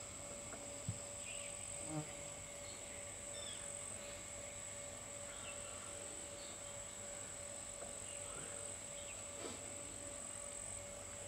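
Forest ambience: a steady high insect drone with faint, scattered short bird chirps, and a couple of short soft knocks in the first two seconds.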